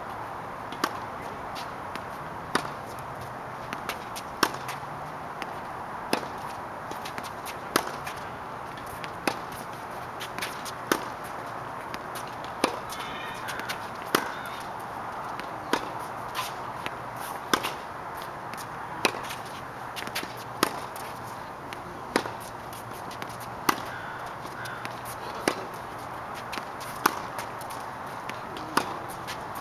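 Tennis racket strikes on a ball in a steady rally on a hard court: a sharp pock about every one and a half seconds, with fainter ball bounces between the hits.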